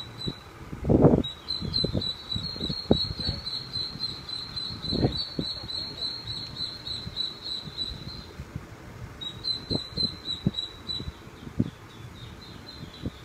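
Ducklings peeping in a rapid, high run that breaks off about two-thirds of the way through and starts again briefly, over scattered low thumps and knocks, the loudest about a second in.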